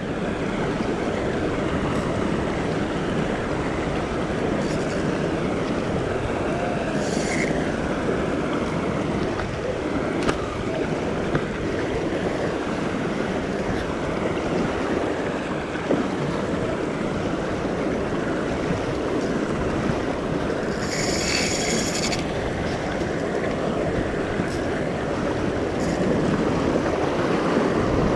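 Ocean swell surging and washing over a sandstone rock ledge in a steady rush. Short high-pitched rasps cut in briefly about seven and twenty-one seconds in.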